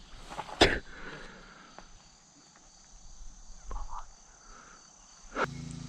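Insects trilling faintly and steadily, with a single sharp click about half a second in. Near the end the trilling stops abruptly and a low steady hum takes over.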